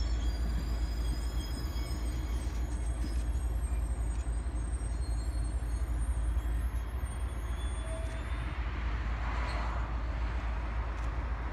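Train passenger cars rolling past on the track: a steady low rumble of wheels on rail, with a short swell of louder noise about nine seconds in.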